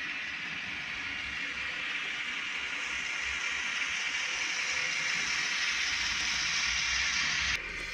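Model railway train rolling past close by on the track: a steady hiss of small wheels on the rails with a low rumble, growing louder as the wagons pass, then cut off suddenly near the end.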